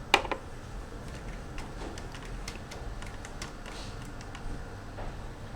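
A sharp click, then a scatter of light ticks and taps from small tools being handled on a workbench.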